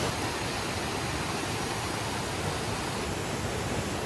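Waterfall and river cascades rushing, a steady, even noise of falling water.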